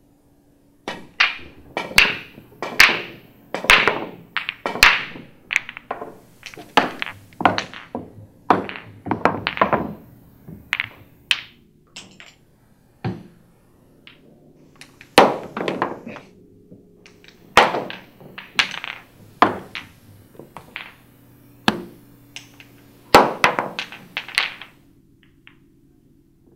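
Pool balls and cue clacking: a long, irregular series of sharp hits, some close together in quick clusters, with a lull in the middle.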